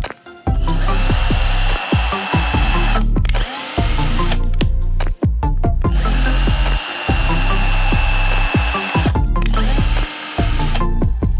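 Background electronic music with a buzzing bass and a steady beat, its pattern repeating about every six seconds.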